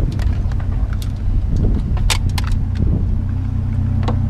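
Vehicle engine idling with a steady low hum, under a few sharp metallic clanks and clicks from scrap metal being handled. The loudest clank comes about two seconds in.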